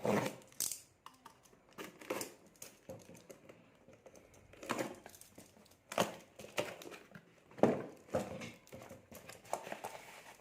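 Parcel packaging being torn open and handled: irregular crinkling and rustling with a few sharper crackles.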